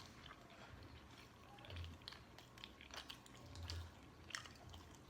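Faint eating sounds, near silence overall: quiet chewing with a few small mouth clicks and soft low thuds.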